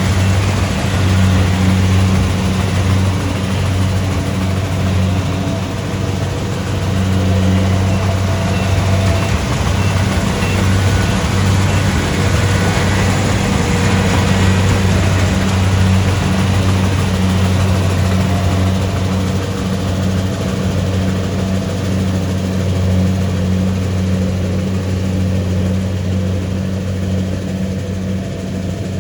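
Kubota DC-70 Pro combine harvester's diesel engine running steadily, a constant loud hum with a wash of machine noise over it.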